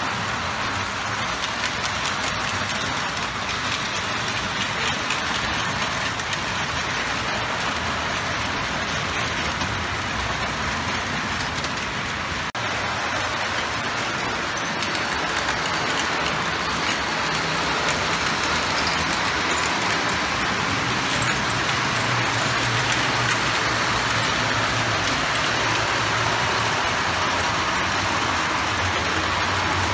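Model trains running on the layout: a steady rattle of wheels over the track, with a low hum that grows a little louder about halfway through.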